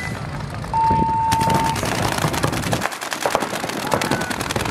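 A steady beep about a second long, then rapid fire from several paintball markers at once: a dense, fast stream of sharp pops that keeps going.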